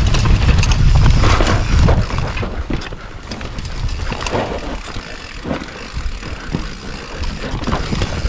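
An Orange Stage 6 mountain bike riding a dirt trail. Heavy wind rumbles on the microphone for about the first two seconds. After that come tyre noise and irregular clicks and rattles from the bike over rough ground.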